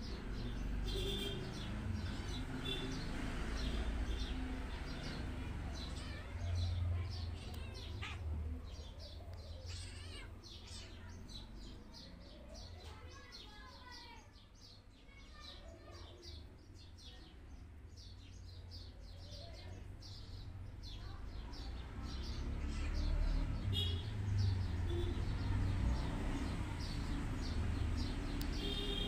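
Small birds chirping again and again over a low rumble, with a few longer sliding calls about halfway through.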